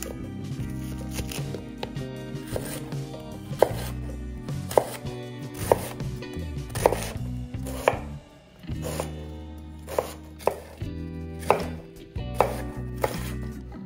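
Chef's knife slicing through a raw cabbage head and striking a wooden cutting board: crisp crunching cuts, each ending in a knock, about one a second.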